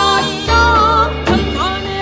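Korean creative gugak ensemble music: a sliding, wavering melody on daegeum bamboo flute and piri over gayageum zither, double bass and piano.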